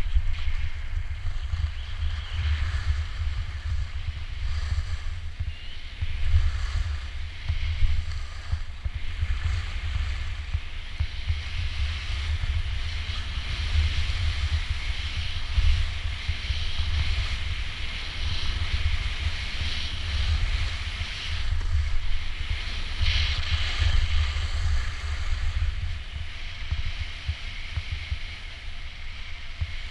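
Wind rumbling on the microphone, over a steady hiss of skis sliding on snow that swells and fades from turn to turn.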